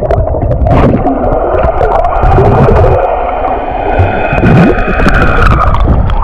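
Muffled underwater gurgling and bubbling heard through a camera held under the sea surface, with a splash as it goes under at the start and the water noise opening up again as it breaks the surface at the end. A faint steady whine runs through the middle.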